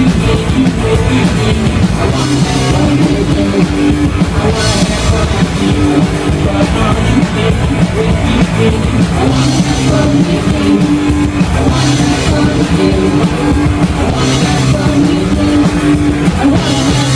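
Live punk rock band playing at full volume: electric guitar and drum kit with cymbals, driving and steady.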